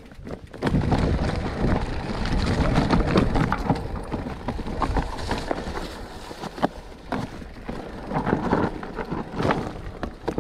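Electric mountain bike rolling down a loose, rocky trail: tyres crunching over stones and the bike rattling with many small knocks, with wind buffeting the microphone. It starts moving about half a second in.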